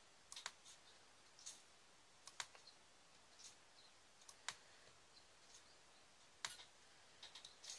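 Faint, irregular light clicks of a diamond painting drill pen tapping small rhinestones down onto the design.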